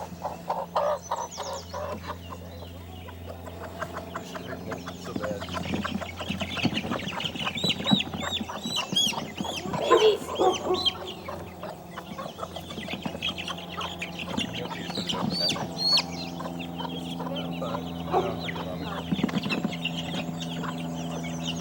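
Baby chicks peeping in many quick high chirps while a broody hen clucks low among them, over a steady low hum.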